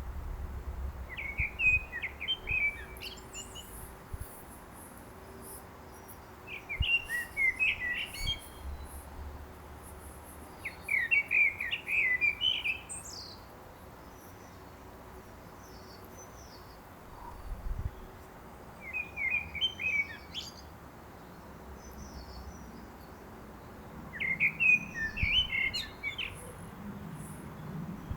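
Common blackbird singing: five separate song phrases of warbled notes, each a couple of seconds long, with pauses of a few seconds between them.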